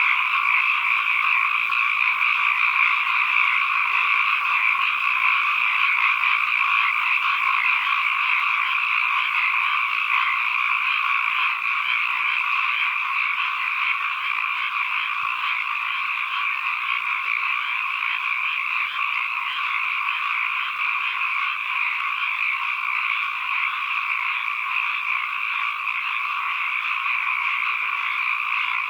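A dense chorus of many frogs calling at once, their calls overlapping into a continuous, unbroken din. It has a lower layer of calls and a brighter, higher one on top.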